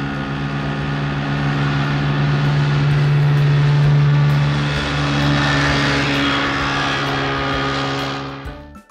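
Hovercraft engine sound effect: a steady propeller-engine drone with a rushing hiss, swelling slightly midway and cutting off near the end.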